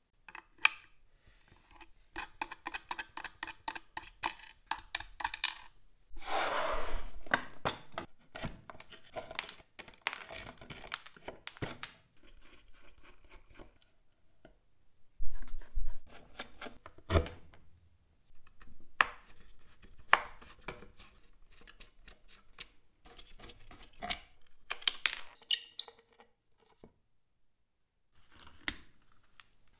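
Hand-work on small metal and wooden parts: a quick regular run of light clicks, then scraping and rubbing, and scattered sharper knocks and clinks.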